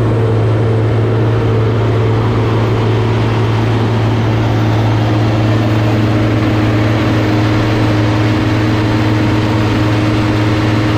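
Heavy diesel engine of a farm machine running steadily, a constant loud low hum that does not change in speed.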